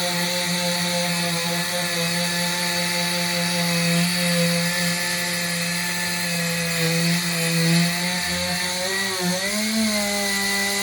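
A power tool's motor running steadily with a high hiss over its hum; its pitch wavers briefly near the end.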